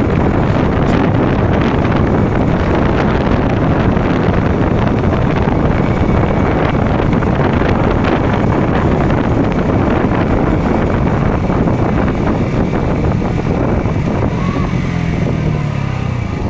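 Heavy wind rush over the microphone with a KTM Duke motorcycle's engine running at speed underneath. Near the end the wind eases slightly and the engine note comes through more clearly.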